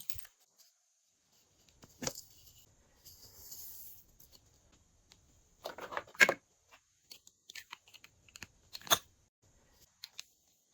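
Glossy slime being worked by hand, giving a few sharp sticky pops and crackles, three louder ones spread through, with quieter crackling between.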